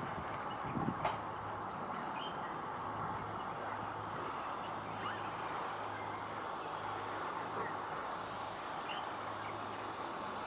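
Steady outdoor background noise with a low, even hum underneath and a few faint short chirps, with a couple of small knocks about a second in.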